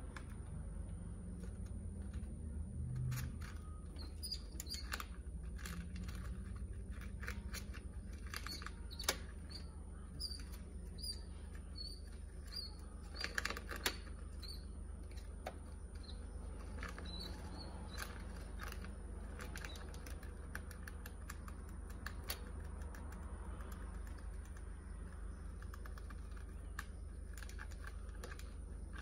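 Small clicks and taps of gravel and scrabbling as a mouse and a sidewinder rattlesnake move over a terrarium's stony floor. A run of short high chirps comes about once a second, over a steady low hum.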